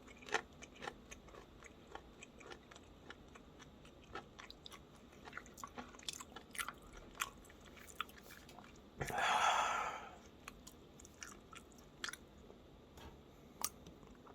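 Close-miked eating of ganjjajang noodles and crunchy kimchi: scattered wet chewing clicks and crunches. About two-thirds of the way through there is one louder rushing sound, about a second long.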